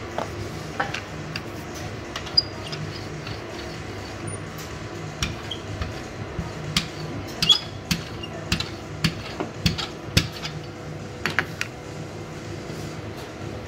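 Stainless steel rolling pin rolling out pizza dough on a granite countertop, giving a run of sharp, irregular clicks and knocks as it touches the stone, densest in the middle. A low steady hum runs underneath.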